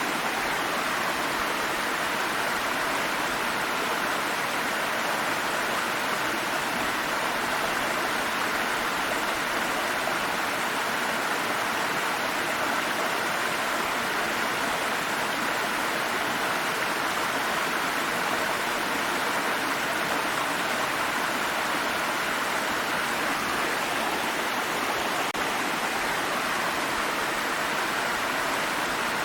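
A water stream flowing steadily: a constant, even rush of running water that never breaks or changes.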